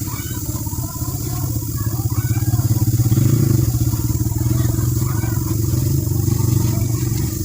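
An engine idling steadily, a loud low hum with a fast even pulse.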